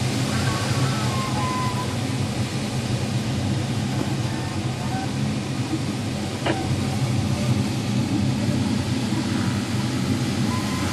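Steady rush of airflow over a glider's canopy in flight, a low, even wind noise inside the cockpit. A few faint short tones sound now and then, and there is a single small click about six and a half seconds in.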